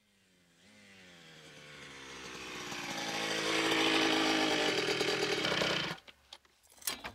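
A buzzing, motor-like drone that swells in loudness over about four seconds, sinking slightly in pitch, then cuts off suddenly about six seconds in, followed by a few short clicks.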